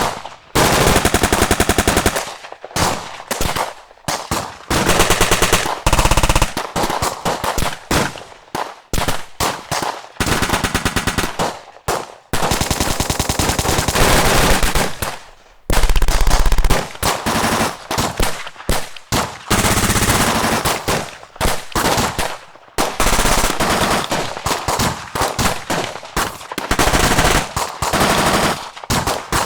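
Automatic gunfire from several weapons: rapid bursts of machine-gun fire, some long and unbroken, others short strings of shots, with brief pauses between them.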